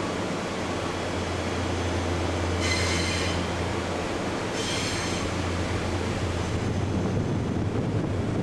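JR East E353 series express train moving slowly through a rail yard, its wheels giving two short high-pitched squeals about three and five seconds in, over a low steady hum.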